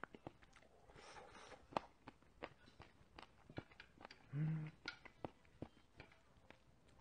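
Close-miked mouth sounds of a man chewing a spoonful of cheonggukjang (fermented soybean stew): scattered wet clicks and smacks. About four seconds in there is a short hum with his mouth closed.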